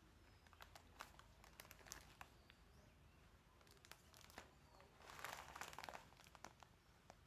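Faint crinkling and scattered small clicks of something being handled, with a denser, louder rustle a little past the middle.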